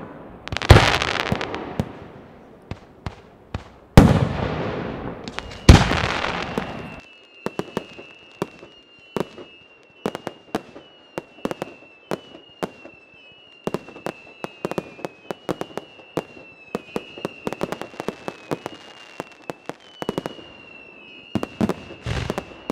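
Fireworks display: three big bursts in the first six seconds, each with a long crackling tail, then a rapid scatter of short sharp cracks from smaller fireworks. A thin, high, wavering whistle runs under the cracks from about six seconds in.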